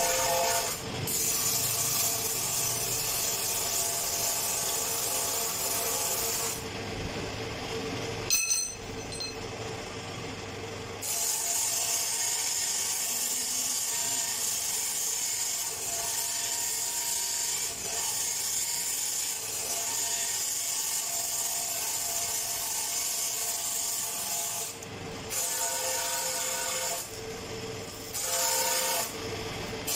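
Electric arc welding on steel pipe, sizzling steadily in long runs broken by a few short pauses, with a sharp ringing knock about eight seconds in.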